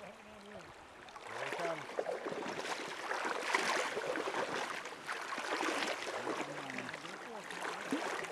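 Shallow river current rushing steadily past the waders' legs, with faint murmuring voices in places.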